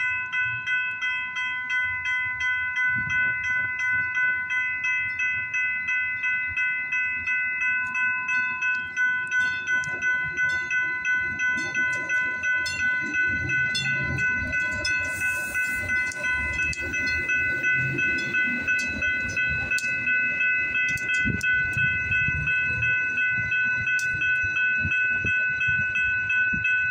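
Grade-crossing warning bell ringing steadily in repeated electronic dings, about two a second. From about eleven seconds in, a Metrolink Arrow Stadler FLIRT diesel multiple unit rolls past with a low rumble and wheel clicks, and a short hiss comes about fifteen seconds in. No horn sounds, as the crossing is in a quiet zone.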